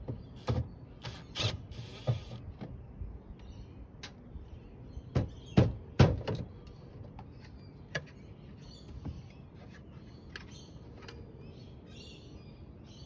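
A cordless drill-driver whirring briefly as it backs out the screws of the service cover on a Daikin outdoor air-conditioner unit, with clicks and knocks as the cover is worked loose and lifted off, the loudest about five to six seconds in.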